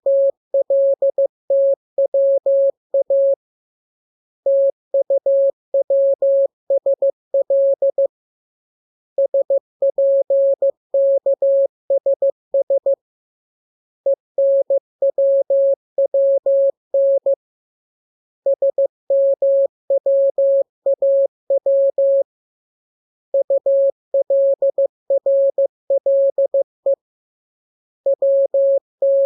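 Morse code sent as a steady single-pitch beep, keyed in quick dots and dashes: a practice radiogram of letter groups, each run about three to four seconds long with a pause of about a second between groups.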